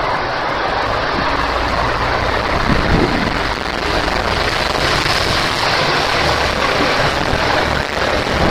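JR Shikoku 2000 series diesel multiple unit departing under power: a loud, continuous diesel engine roar with a steady low hum as the cars move off.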